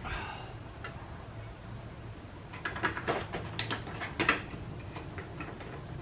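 Plastic bumper tabs and clips being worked loose: a brief squeak that falls in pitch, then a cluster of sharp clicks and knocks in the middle.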